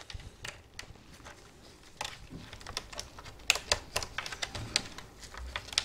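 Scattered sharp plastic clicks and taps as keycaps are pried off a Razer BlackWidow Ultimate mechanical keyboard. A quicker run of clicks comes a little past halfway.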